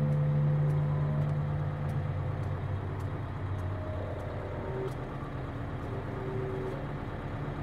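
City bus engine running, a steady low drone.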